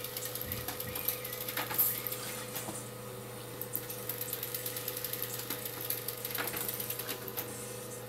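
Desktop laser printer running as it feeds and prints a sheet: a steady hum under a fast run of small mechanical clicks, thinning briefly about halfway through.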